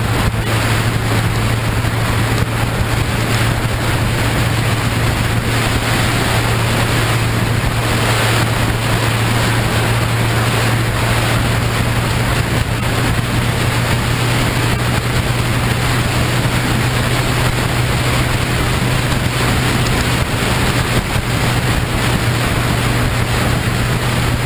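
Road vehicle cruising at steady speed: a constant low engine hum under loud wind rushing over the camera microphone.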